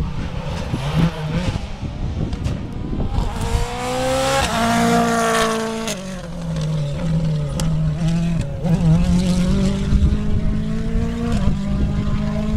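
Rally car engine at full throttle passing close by and pulling away, its note rising as it comes past, then dropping and climbing again through several gear changes.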